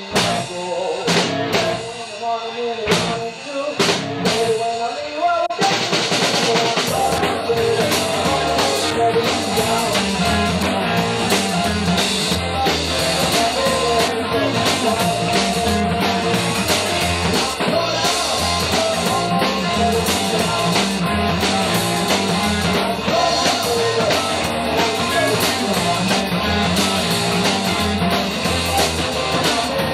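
Rock music with a drum kit: for the first five seconds or so there are separate drum hits, then the full band comes in, with a bass line joining a second or so later.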